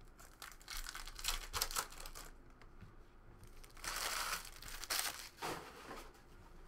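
Foil trading-card pack wrappers crinkling as the packs are handled and opened. The crackling comes in a quick run of short bursts over the first two seconds, then a louder spell about four seconds in and a couple of shorter ones after it.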